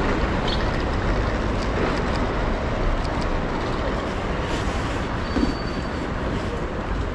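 Heavy rain and street traffic with a bus running close by: a dense, steady wash of noise over a low rumble.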